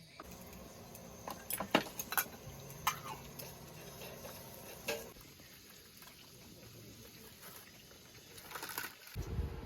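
Scattered light clicks and knocks, several in the first half and a few more near the end, over a faint steady hiss. Just before the end a low rumbling noise sets in.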